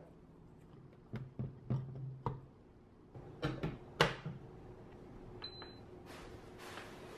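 Small electric rice cooker being handled: a run of clicks and knocks, the loudest about four seconds in as its lid is shut. Then a short high electronic beep from the cooker, with another at the very end.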